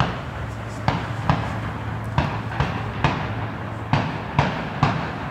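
Fireworks going off in a rapid series of sharp bangs, about two a second, each trailed by a short echo.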